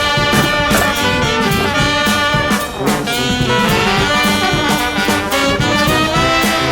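Upbeat jazz music in a swing style, led by brass horns, playing steadily with a regular beat.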